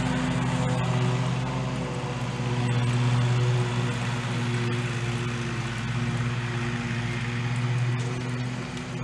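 A motor running steadily, a low even drone that holds one pitch and swells and eases slightly in loudness.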